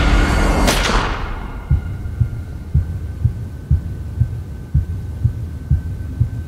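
Sound-design heartbeat: low, evenly spaced thumps about two a second over a low hum. It follows a loud noisy rush that ends in a sharp hit within the first second.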